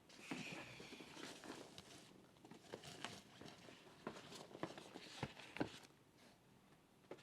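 Quiet rustling and scattered light taps and clicks of cardboard and plastic packaging being handled as parts are taken out of a box.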